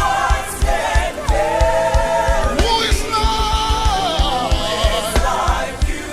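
Live gospel worship music: voices holding long sung notes over a band with a steady kick-drum beat.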